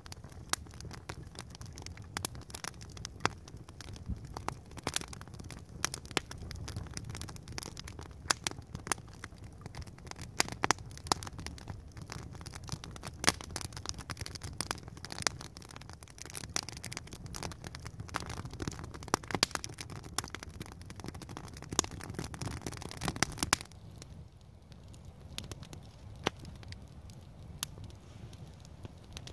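Wood campfire crackling and popping: irregular sharp pops over a low rumble. About three-quarters of the way through it turns quieter and the pops come more sparsely.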